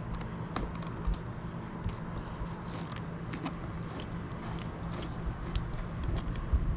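Scattered light clicks and taps of hand tools and small parts as the panel around an RV's city water inlet is taken apart, over a steady low hum.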